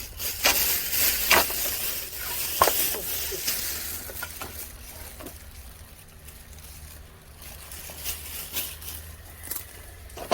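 Leaves and branches rustling, with several sharp clicks and knocks in the first few seconds; after about four seconds it turns quieter, with only a few scattered clicks.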